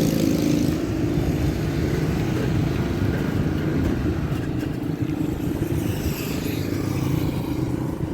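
Concrete mixer truck's engine running steadily with a low rumble, easing slightly about a second in.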